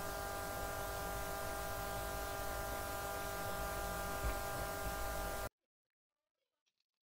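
Steady electrical hum and hiss, with several hum tones held over an even hiss. It cuts off suddenly about five and a half seconds in, leaving near silence.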